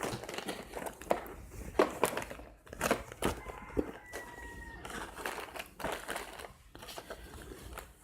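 Packaging being handled: irregular crinkles, rustles and small clicks as the hand towel is unwrapped, with a faint brief squeak in the middle.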